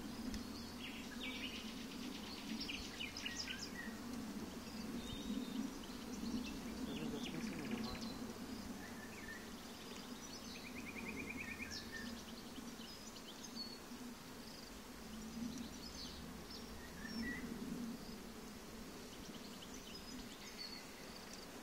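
Honeybees humming over an open hive full of frames, a steady drone, with birds chirping now and then in the background.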